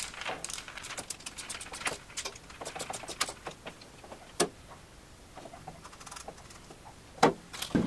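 Screwdriver working the strain-relief screws on an electrical plug: a run of quick small ticks and rattles. About halfway through there is one sharp clack as the screwdriver is set down on the metal saw table, and two sharper knocks come near the end.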